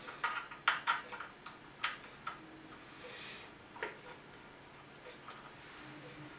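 Small hand wrench clicking and ticking against the metal head of a Bridgeport J-head milling machine as its bolts are worked loose. There is a quick run of sharp metallic clicks in the first two seconds, then a few single clicks.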